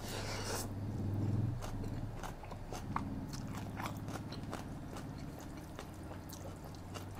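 A forkful of khanom jeen rice noodles in coconut curry slurped into the mouth in the first half second, then close-miked chewing with many small wet clicks and smacks. A low steady hum lies underneath.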